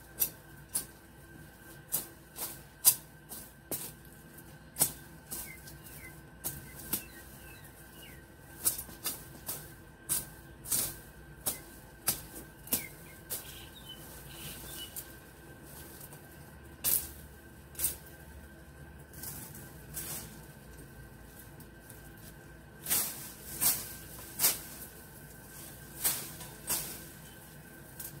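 Dry leaf litter and twigs rustling and crackling as they are handled and pulled on the ground, in irregular sharp crackles about one or two a second with quieter stretches between.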